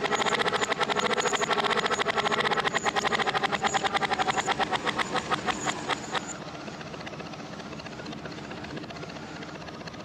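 Tractor engine running the log winch, played backwards: a fast, even chugging whose beats slow down and then cut off suddenly about six seconds in, leaving a quieter steady hum.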